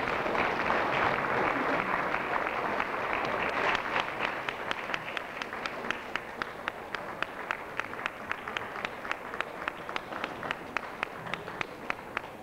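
Audience applause: a dense wash of clapping that, about four seconds in, thins into steady rhythmic clapping at about four claps a second.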